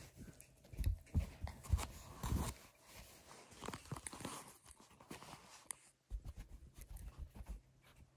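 Small Pomeranian chewing a treat: faint, irregular crunches in a few short clusters.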